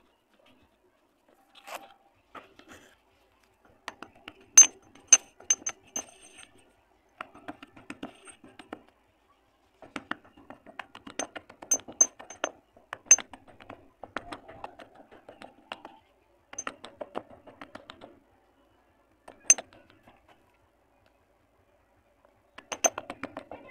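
Dry multani mitti (fuller's earth) clay being crumbled by hand and crushed with a stone pestle in a stone mortar: clusters of crisp crunching and crackling, broken by a few sharp, ringing clinks of the pestle striking the mortar.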